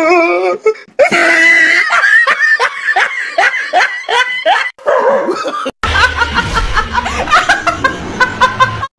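Human laughter in quick, repeated short bursts. About six seconds in it switches to a different laugh, a young woman laughing loudly.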